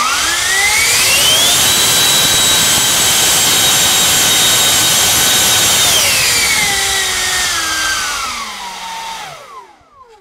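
90 mm electric ducted fan with a five-blade rotor, driven by a GoolRC 4082 1900 kV brushless inrunner motor on 8S, spooling up with a steeply rising high-pitched whine over about two seconds. It holds a steady loud whine and rush of air at full throttle, making about 4 kg of thrust, then winds down over the last four seconds, the whine falling in pitch until it stops.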